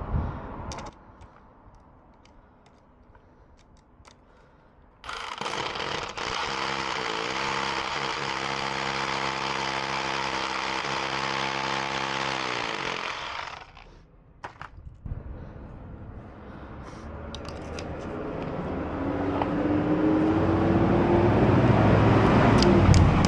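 Rotary hammer drill boring a fixing hole into a brick wall for a pipe saddle clip: it starts about five seconds in, runs steadily for about eight seconds and then spins down.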